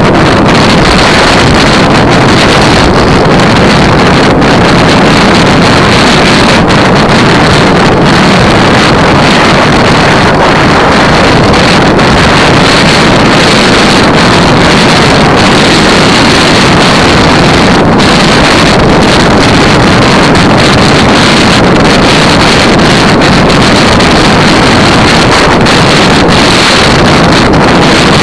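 Loud, steady wind noise buffeting the microphone of a bicycle-mounted camera at about 40 km/h, mixed with tyre hiss on a wet road surface.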